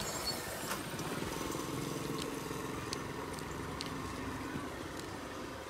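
An electric motor on a Toyota minivan, set running from the remote key fob, whirs steadily for about three and a half seconds, starting about a second in. A few light clicks sound along the way.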